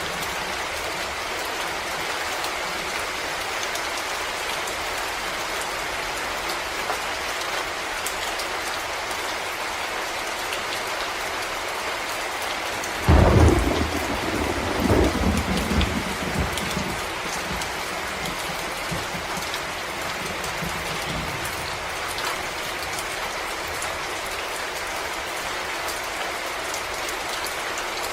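Steady rain falling in a forest, with a sudden thunderclap about halfway through that rumbles low for a few seconds and fades back into the rain.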